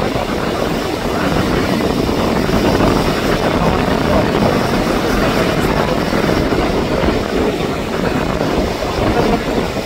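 Rough sea surf, waves breaking and washing in as a steady rushing noise.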